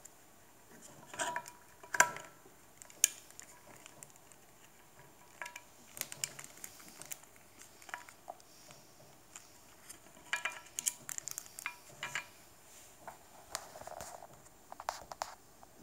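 Hard plastic clicks, snaps and clatter as the snap-fit plastic case of a Teltonika FM1000 OBD GPS tracker is pried apart and handled, the sharpest snaps about two and three seconds in.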